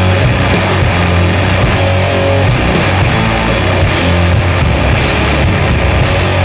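Slow doom/sludge metal: heavily distorted low guitars and bass holding long, slow riff notes, with the drummer's cymbals hit about twice a second.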